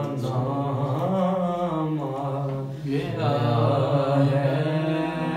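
A man's voice chanting a naat unaccompanied, in long drawn-out melodic notes, with a brief pause a little before halfway and the voice coming back louder.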